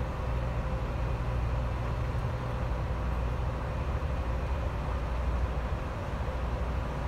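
Steady low drone of a vessel's engine, with a rush of water over it.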